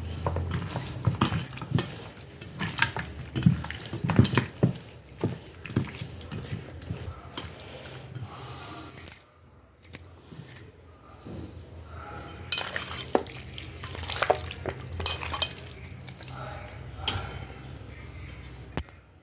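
Kitchen work sounds: utensils and dishes clinking and knocking in many short strokes over a low steady hum, briefly cutting out about halfway through.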